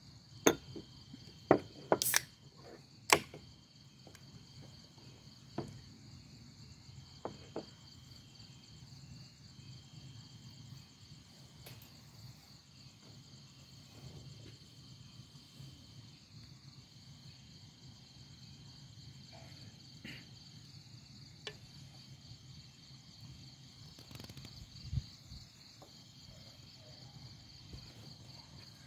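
Steady night chorus of crickets, a high pulsing trill, with a few sharp knocks in the first three seconds.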